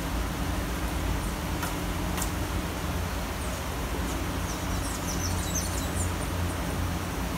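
Steady city rain hiss over a low, constant rumble, with a few short high bird chirps a little past halfway.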